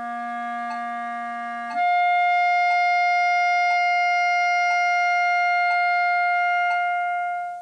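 B-flat clarinet playing a low chalumeau C for about two seconds, then jumping up a twelfth to a louder clarion G held for about six seconds. The G keeps sounding after the register key is let go, so it is played as an overtone. A metronome ticks once a second.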